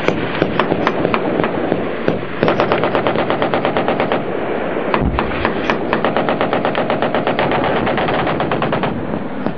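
Automatic weapons fire in a firefight: a few scattered shots, then from about two seconds in a machine gun firing long, rapid bursts of about ten rounds a second, with a low thump about five seconds in.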